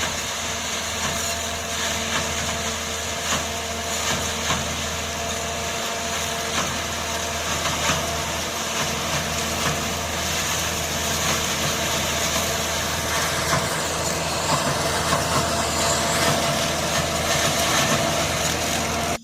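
Tractor engine running with a tractor-mounted forage harvester working: a steady, loud mechanical din with scattered knocks and rattles, cutting off suddenly at the end.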